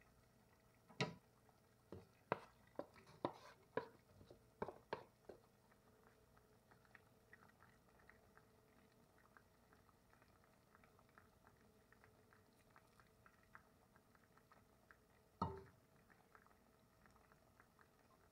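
A quick run of sharp clacks against an enamelled cast-iron Dutch oven as chopped vegetables go in, then a faint, fast crackle of the braising liquid simmering under the meat, with one more knock about fifteen seconds in.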